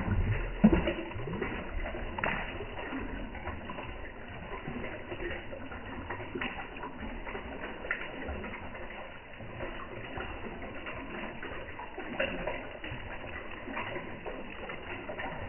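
Pond water splashing and slurping as a crowd of koi feed at the surface, with scattered small clicks and a louder burst in the first second.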